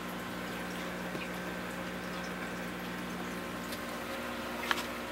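Steady hum and faint bubbling of water from a running pump, with a couple of sharp clicks near the end.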